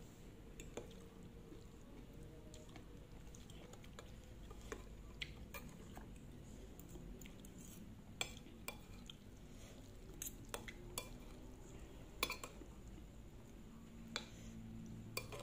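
Metal fork and spoon clinking and scraping against a ceramic plate while mixing noodles: a dozen or so sharp, irregularly spaced clinks, the loudest about eight and twelve seconds in.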